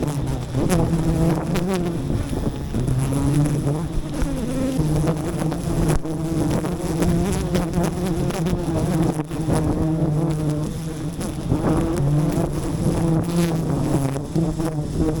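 A swarm of wild bees buzzing at close range: a steady, wavering hum of many overlapping pitches.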